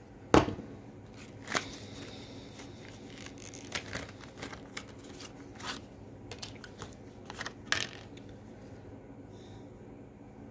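Handling sounds of a lighter in its plastic case: a string of sharp clicks and scrapes, the loudest about half a second in, with a short scraping hiss a second or so later.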